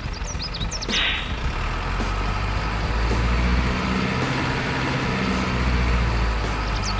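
Large diesel truck engine running, growing louder from about three seconds in, with a short air hiss about a second in.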